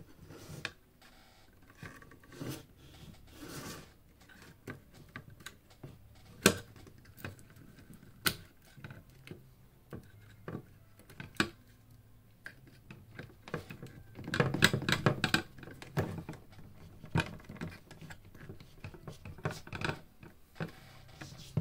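Irregular clicks, taps and small knocks of hands and tools handling a Mackie MR5 studio monitor during a teardown, with a burst of quick rattling clicks about fourteen seconds in.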